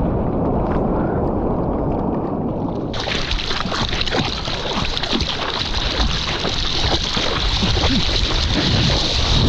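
Seawater rushing and splashing right at an action camera's microphone as a surfboard moves through whitewater. It is muffled at first, then about three seconds in it suddenly opens into a loud hiss of spray with many small splashes.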